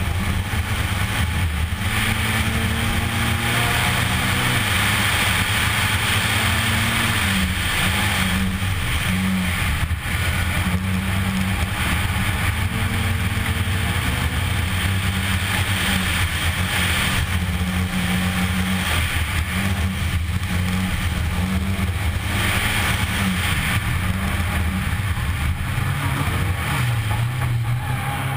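Škoda Fabia R2 rally car's 1.6-litre four-cylinder engine driven hard, its pitch climbing and dropping in steps as the driver shifts up and down through the gears, over a steady rush of tyre and gravel noise, heard from inside the cabin.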